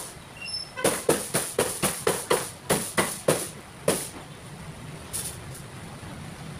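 Cleaver chopping roasted chicken on a chopping board: a run of sharp chops, about three or four a second, that stops about four seconds in.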